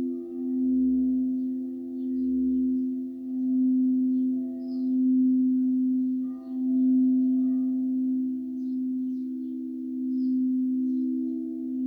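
Quartz crystal singing bowls ringing together, two steady low tones held throughout with fainter overtones above, the sound swelling and fading in slow waves every couple of seconds.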